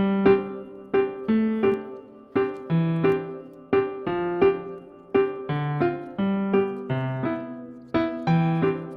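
Background piano music: a gentle repeating pattern of single notes over a slow-moving bass line.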